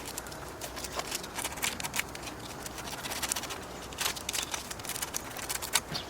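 Sandpaper scrubbing a dirty car battery terminal clamp to clean off corrosion: irregular scratchy scraping strokes.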